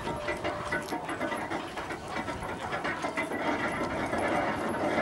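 Horse-powered gear (horse gin) turning, its gearing and drive shaft clattering with many irregular ticks, with an animal noise among it.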